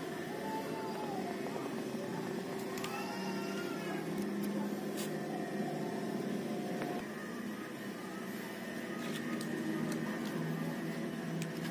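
Small electric motor and gears inside a cardboard model diesel engine running with a steady whirring hum; the hum shifts slightly about seven seconds in. Faint chirping calls can be heard in the background.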